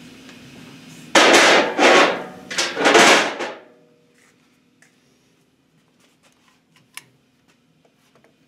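Three loud, short bursts of hiss, about a second in, from an unseen source. Then quiet, with a few light clicks as a connecting rod is set onto a scale's weighing fixture.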